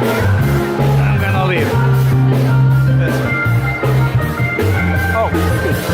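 Loud band or dance music with a steady drum beat, bass and guitar, with faint crowd voices underneath.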